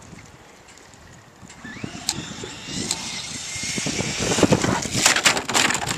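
Traxxas Slash 4x4 RC truck's brushless electric motor whining as it accelerates, with a short rising whine about a second and a half in, and tyres rasping on asphalt. It grows louder as the truck approaches, with sharp knocks in the last second or two.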